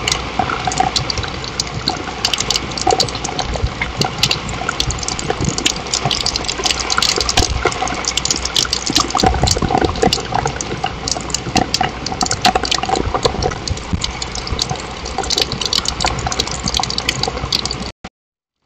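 Steady rain falling on a patio, with many close, sharp drip taps. It cuts off briefly near the end.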